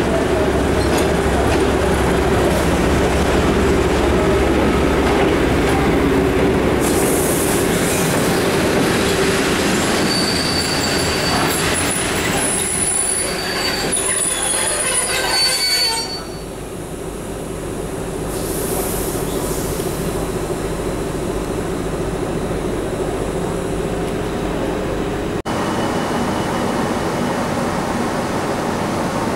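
A diesel locomotive runs steadily as it hauls passenger coaches past. The coaches then roll by with brief high-pitched wheel squeals. About halfway through, the sound changes to a quieter, steady rumble of another train approaching.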